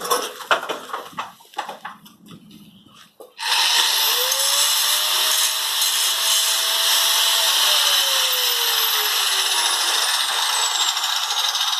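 A few knocks of metal for the first three seconds. Then a power tool, most likely an angle grinder, starts abruptly and runs steadily, its pitch rising and later falling a little as it works the metal.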